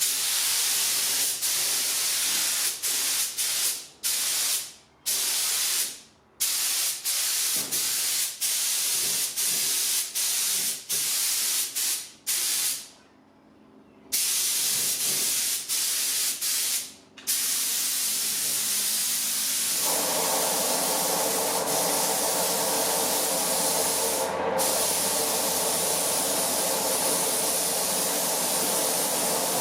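Air spray gun hissing as it sprays metallic base coat: short bursts with the trigger pulled and released many times, then a long unbroken pass. About two-thirds of the way through, a steady lower hum joins the hiss.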